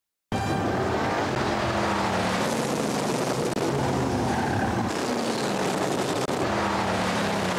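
Several BriSCA F1 stock cars' V8 engines running and revving together, their pitch rising and falling; the sound cuts in abruptly a fraction of a second in.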